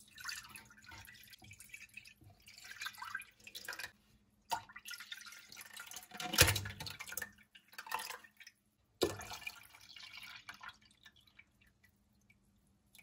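Chicken broth, partly frozen and slushy, poured from plastic tubs into a stainless steel stock pot, splashing and trickling in several spurts with short pauses. A few sharp knocks stand out, the loudest about six and a half seconds in.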